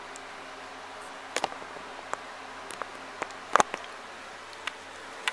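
Handling noise from a camera held close to the face: scattered short clicks and knocks over a steady hiss, the loudest a double knock about three and a half seconds in.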